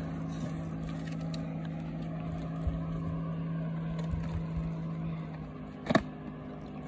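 An engine humming steadily at one low pitch, stopping about five seconds in. A single brief loud thump follows about a second later.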